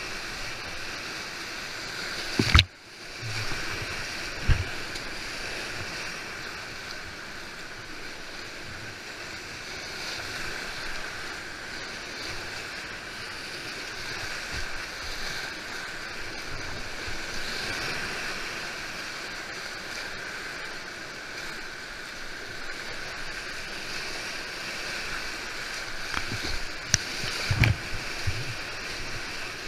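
Whitewater rapids of a river running at about 16.5 cumecs, rushing steadily around a kayak as it paddles down. There are sharp knocks and splashes about two and a half seconds in, again about two seconds later, and several more near the end. The sound drops out briefly right after the first knock.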